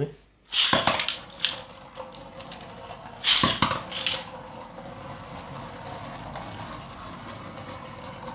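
A Beyblade launcher rips a top onto the stadium mat about a second in, with a sharp clatter, and a second loud clatter of plastic tops follows a little after three seconds in. Then two Beyblade Burst tops spin on the mat with a steady whirring scrape.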